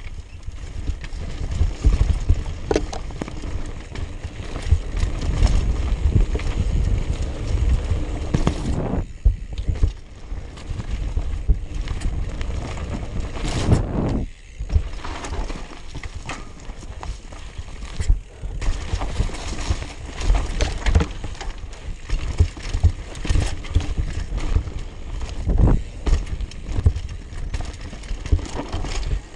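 Mountain bike ridden fast down a dirt trail: wind buffeting the microphone, tyres rumbling over the dirt, and the bike rattling and clunking over bumps and landings, with a few brief quieter gaps.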